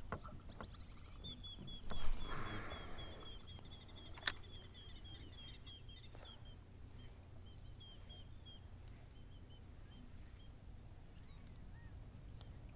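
A small bird chirping in quick runs of short, repeated notes over a low steady background. About two seconds in comes a brief swish, the loudest sound, and about two seconds after that a single sharp click.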